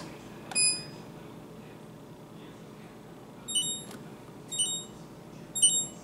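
Electronic beeps from a Whirlpool side-by-side refrigerator's dispenser control panel as its Filter Reset button is held: one beep on the press, then three short beeps about a second apart confirming the water filter indicator has been reset.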